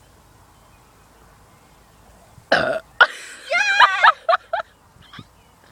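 A girl's loud, short burp about two and a half seconds in, brought up after gulping fizzy soda. It is followed at once by a high, wavering voice that breaks off into a few short sounds.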